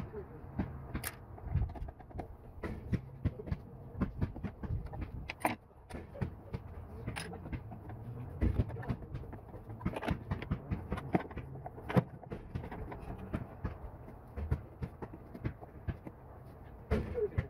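Irregular clicks, taps and knocks of a screwdriver and hands working on metal and plastic parts inside an outboard motor's cowling, as cables and linkages are undone.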